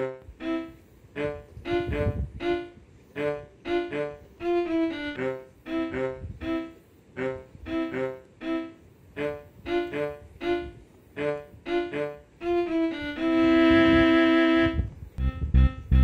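Instrumental background music: short, detached string notes in a steady rhythm, then a long held note, the loudest part, a little before the end.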